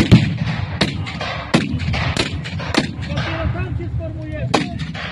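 Ragged volley of black-powder musket shots: about six sharp cracks, one roughly every second, the loudest at the very start, with shouting voices between them.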